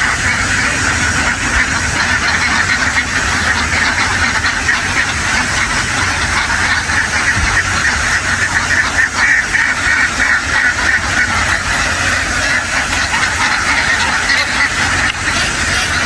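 A huge flock of ducks quacking all at once in a dense, unbroken chorus, with a steady low hum underneath.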